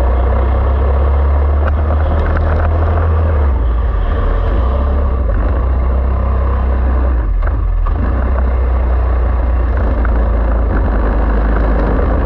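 Four-stroke racing kart engine running hard on board on a wet track, with a brief drop in the sound about seven and a half seconds in.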